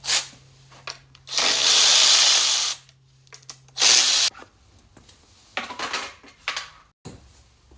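A power tool runs in two bursts, a long one of about a second and a half and then a short one, followed by lighter metallic clicks of parts being handled.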